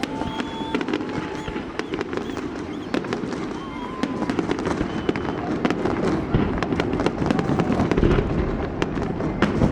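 Fireworks going off in quick succession: many sharp bangs and crackles, with a few short whistling tones in the first half.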